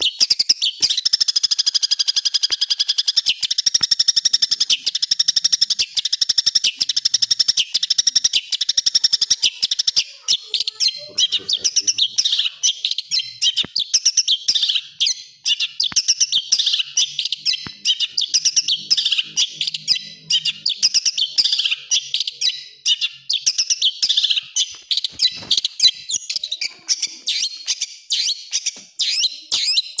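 Long-tailed shrike (cendet) singing an unbroken, dense stream of high, rapid-fire harsh notes and trills. It opens with a held trill for the first few seconds, then breaks into fast chattering phrases.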